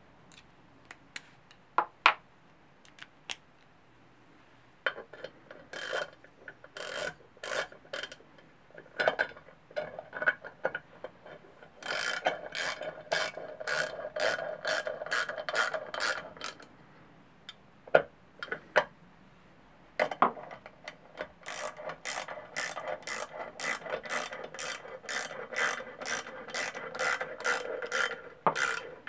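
Ratchet wrench clicking on a bolt of a small pit-bike engine, in runs of quick strokes about two to three clicks a second, with pauses between runs.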